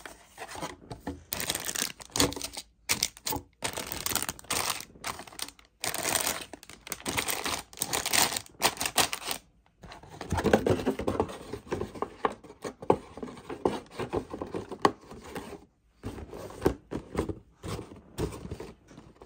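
Rustling and crinkling of plastic bags and a paper instruction sheet from a plastic model kit being unpacked, full of small clicks. About halfway through the sound turns duller, with soft knocks of bagged plastic runners against the cardboard box.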